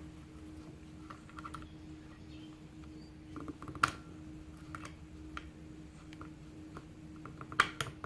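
Small metallic clicks and scrapes of a tool working at the retaining clip on a lock cylinder, sparse and irregular, with one sharper click about four seconds in and a quick cluster near the end.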